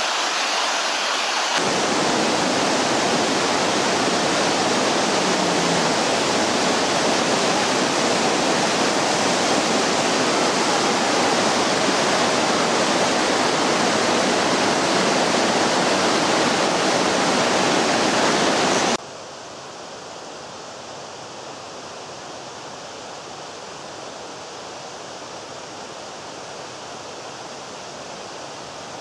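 Mountain stream cascading over rocks, a steady rush of water. About two-thirds of the way through it cuts abruptly to a quieter, duller rush of the same stream heard from farther off.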